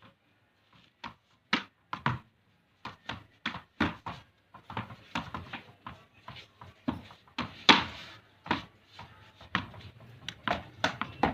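Cricket bat repeatedly knocking a ball in a knocking drill: sharp wooden knocks, irregular at about two to three a second, the loudest near the middle.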